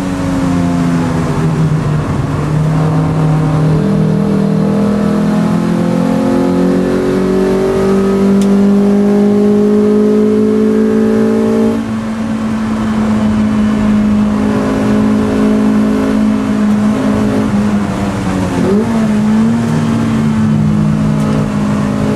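Toyota MR2 race car's engine heard from inside the cabin, working hard on track. Its note falls over the first couple of seconds, climbs steadily for about nine seconds, drops abruptly about twelve seconds in, then holds fairly steady apart from a brief dip a few seconds before the end.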